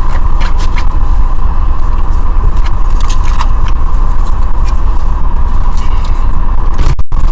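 Loud steady rumble of a moving vehicle, with scattered clicks and crackles and a brief break in the sound near the end.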